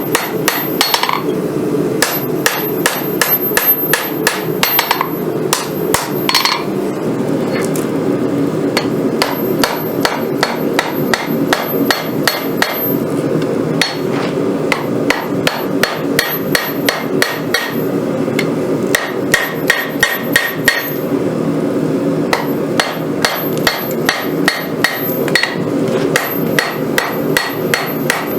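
Hand hammer striking hot Damascus steel on an anvil, about three blows a second in runs with short pauses, over the steady roar of the forge.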